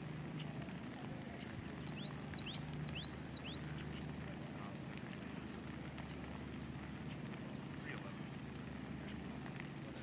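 Outdoor ambience of wildlife: a high chirp repeating about four times a second throughout, with a few quick downward-sliding whistled calls around two to three and a half seconds in, over a low steady hum.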